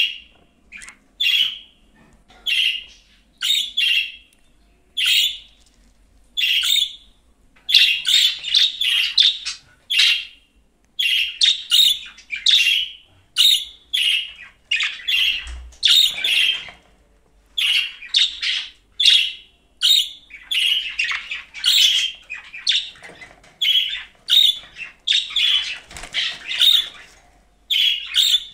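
Budgerigar chirping and chattering: short calls repeating every half second or so, running together into busier warbling stretches now and then.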